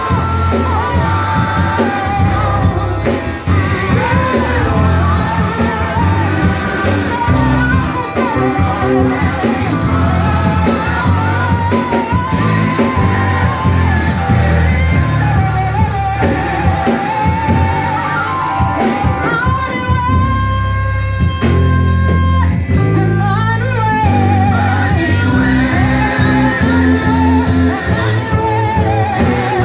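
Live church worship music: singing over a band with guitar and a heavy bass line. About twenty seconds in, one voice holds a long steady note.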